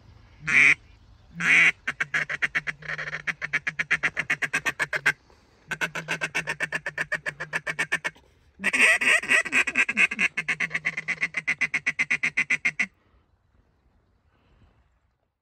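Duck quacking: two drawn-out quacks, then three runs of rapid, evenly spaced quacks with short breaks between them, stopping abruptly near the end.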